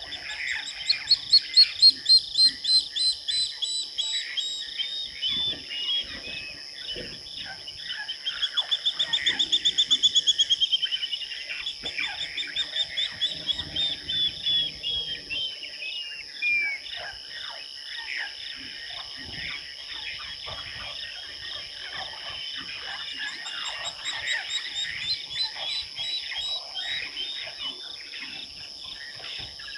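Wild birds calling over a steady high-pitched insect drone. A series of descending notes comes in the first few seconds, then a fast run of notes that swells and fades about eight to eleven seconds in, then more scattered calls.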